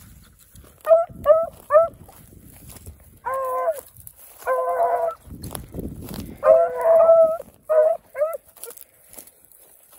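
Beagle rabbit hounds baying: three quick yelps about a second in, then three longer bawls, then two more short yelps near the end.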